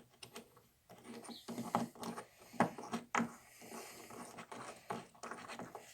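Light, irregular clicks and scrapes of small metal parts being handled as an M8 threaded stud is fitted into a brass cross and an aluminium piece. The clicks come thickest around the middle.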